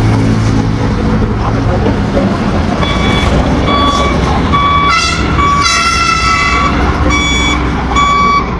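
Heavy diesel engine running at a steady rumble during the loading of a Doosan DX140 excavator, with a reversing alarm starting to beep about three seconds in, about two beeps a second. Two short horn toots sound around the middle.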